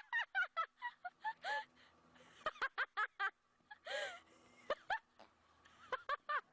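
Domestic fowl squawking and cackling in quick runs of short calls, the alarm calls of a bird being chased, with a few louder, harsher squawks later on.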